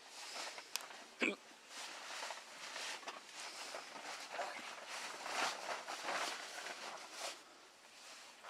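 Footsteps and rustling movement, with one sharp knock about a second in.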